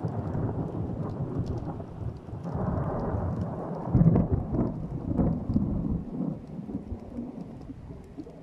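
Thunder rolling after a lightning strike: a rumble that sets in suddenly, swells to its loudest about four seconds in, then rumbles down, with rain falling.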